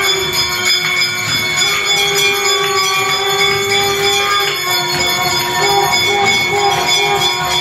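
Temple bells rung continuously and fast, their steady ringing tones sustained over a dense clatter of strikes.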